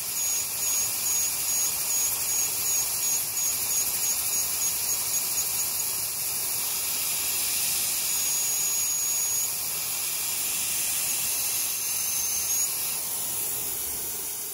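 CNC lathe boring the cone in a 416 stainless steel rifle barrel with a small boring bar under flood cutting oil: a steady hiss of oil spray and the running spindle. A faint high squeal from the cut pulses about three times a second through the first half and comes back briefly twice later.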